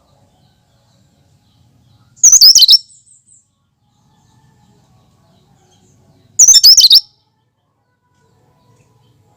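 A cucak kinoi songbird singing two short, loud, high-pitched warbling phrases about four seconds apart, each lasting about half a second, with a few faint trailing notes after the first.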